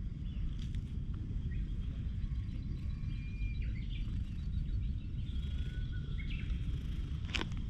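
Low steady rumble with birds chirping and whistling faintly in the background, and one sharp click near the end.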